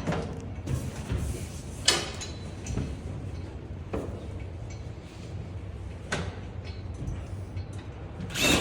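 A drywall piece being handled and fitted: a few separate knocks and scrapes, roughly every two seconds, over a steady low hum.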